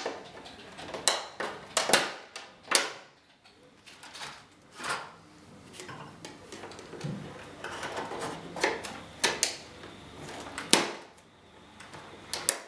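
Undercarriage covers being slid over a model plane's metal landing-gear legs and clicked into place: irregular clicks, taps and knocks, a few sharp ones standing out, with handling rustle between.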